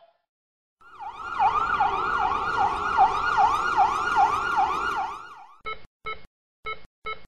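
Electronic siren sweeping rapidly up and down, about two and a half sweeps a second, for several seconds. It fades out and is followed by five short beeps.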